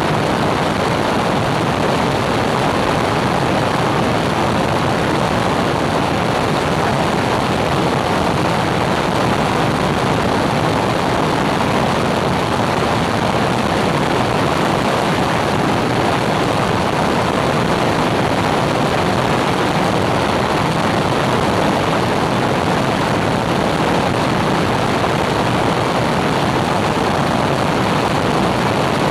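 Small propeller aeroplane in cruise flight: a loud, steady rush of engine, propeller and airflow noise that does not change.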